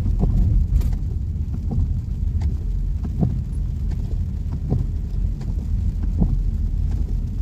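Steady low engine and road rumble inside a slowly moving car, with short squeaks every second or so at uneven intervals.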